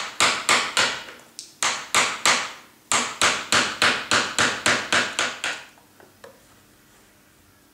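Wooden mallet driving a carving gouge into limewood in quick, light strikes, about four a second with two short pauses, stopping about five and a half seconds in.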